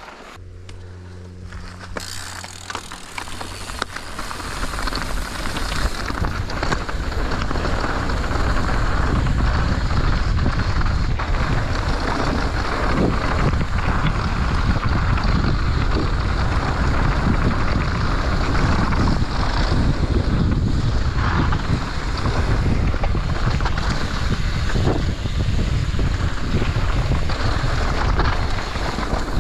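Wind buffeting an action camera's microphone and mountain bike tyres rolling fast over a dirt trail, with rattles and knocks from the bike over bumps. It starts quieter with a brief low hum, then builds over the first few seconds as speed picks up and stays steady.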